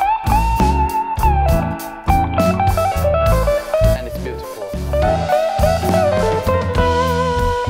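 Background music: a guitar melody with bending notes over a drum beat.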